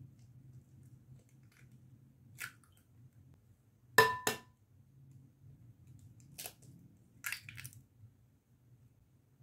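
Eggs cracked against the rim of a glass mixing bowl: a few sharp taps, the loudest two in quick succession about four seconds in with the glass ringing briefly, then a short cluster of small cracks near the end.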